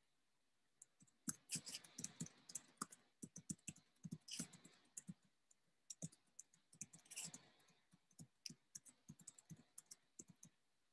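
Typing on a computer keyboard: a run of irregular key clicks that starts about a second in, with a few quick flurries among the single taps.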